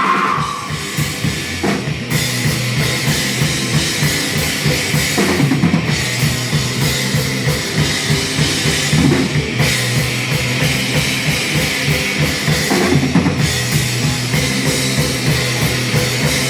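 Rock music played on a drum kit, with bass drum and cymbals driving a steady, fast beat, in a passage without singing.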